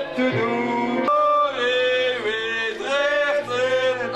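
Male voices singing a song over an instrumental backing.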